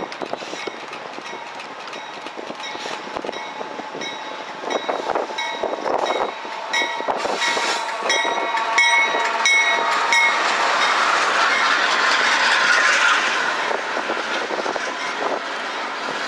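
Diesel freight locomotives approach and pass beneath, with a repeated ringing tone about twice a second up to about ten seconds in. Then comes the louder rumble of the engines going under, and the wheels clacking as the covered hopper cars roll by.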